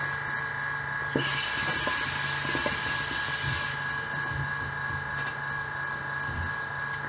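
A draw on a hookah: air pulled through the water-filled base as a hiss with scattered small bubbling pops, lasting about two and a half seconds from about a second in, while the freshly lit bowl is only just starting to smoke.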